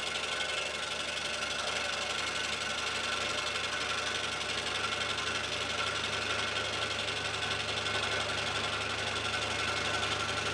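Scroll saw running steadily, its reciprocating blade cutting through a small block.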